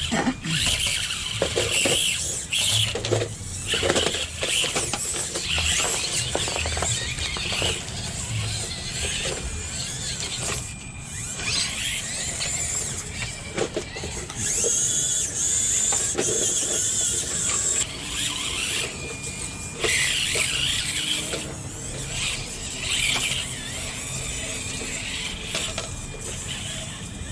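1/24-scale RC rock crawlers' small electric motors and geared drivetrains whining, the high-pitched whine starting, stopping and changing pitch with the throttle, with clicks and knocks of the trucks' wheels and chassis on rock.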